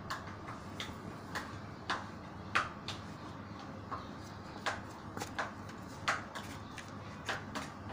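A metal spoon stirring a chopped tomato and spice mix in a bowl, clinking and scraping against the sides in irregular clicks about two a second.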